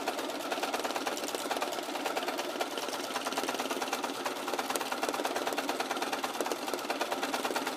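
Bernina computerized sewing machine running steadily at speed, the needle stitching in a fast, even run of strokes as fabric is moved freely under a free-motion foot.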